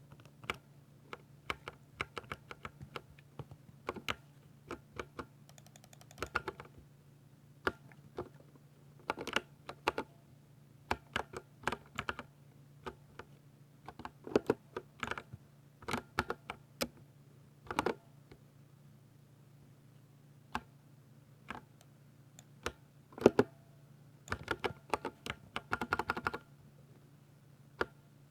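Typing on a Ducky 60% RGB mechanical keyboard with silver (linear Cherry MX Silver) switches: irregular keystrokes, some single and some in quick runs of several keys.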